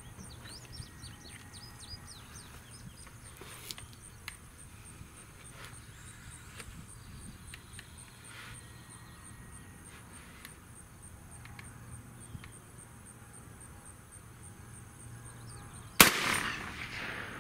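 A quiet outdoor stretch, then near the end a single shot from a .300 Blackout rifle firing a subsonic 178-grain ELD-X handload, its report dying away over about a second.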